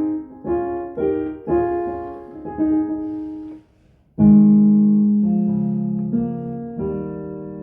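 Roland XPS-10 keyboard playing a piano sound: single notes struck about twice a second, a short pause about halfway, then lower notes held and fading. The keys are being test-played after a repair for dead keys, and they all sound.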